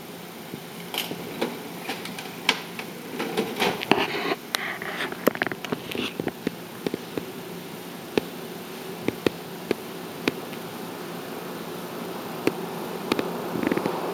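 Fingers handling and knotting fishing line close to the microphone: a run of small clicks, ticks and rustles, busiest in the first several seconds and sparser later. A steady low hum sits underneath.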